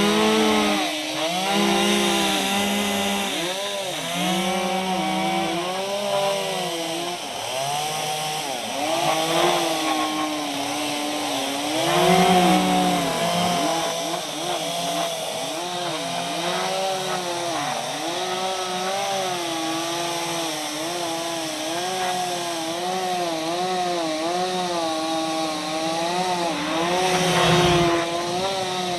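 Chainsaw carving into a palm trunk, the engine revving up and down over and over as the cuts are worked, with a few louder surges.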